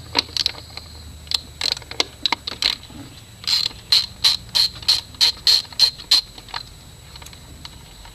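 Socket ratchet wrench clicking as a bolt on the air intake box is worked loose. Scattered clicks at first, then a steady run of about three clicks a second for a few seconds.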